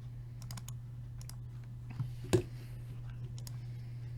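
Computer keyboard and mouse clicks: a few light clicks, then two sharper clicks about two seconds in. A steady low hum runs underneath.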